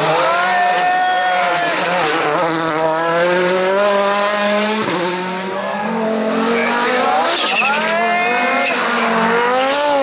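Rally cars accelerating hard out of a tight tarmac hairpin, their engines climbing in revs in repeated rising sweeps that drop back at each gear change, with tyres squealing as the cars slide sideways.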